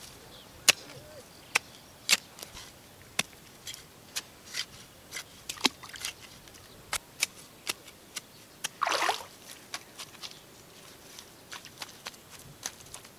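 Irregular sharp clicks and taps at a muddy pond edge, with one short splash of water about nine seconds in.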